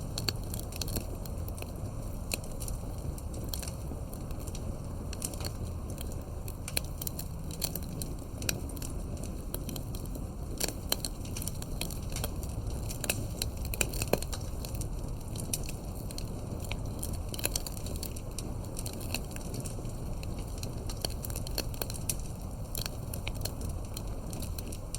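Campfire burning, with irregular sharp crackles and pops over a steady low rush. One louder pop about midway.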